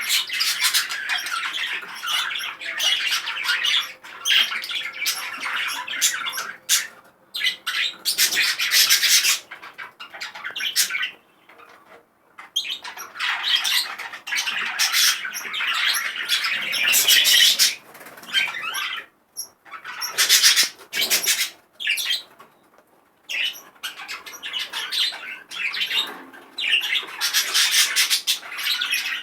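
Male budgerigar chattering and squawking in long, fast bursts broken by short pauses, the busy warble of a highly excited cock bird.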